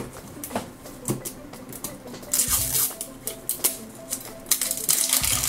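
Hands handling a small plastic toy container with many light clicks and taps, and tearing open its crinkly plastic wrapper, with bursts of crinkling about two and a half seconds in and near the end. Faint music underneath.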